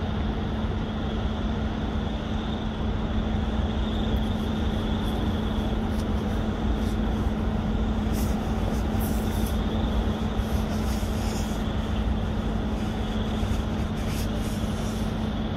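Steady engine rumble with a constant low hum, and a faint high hiss in the second half.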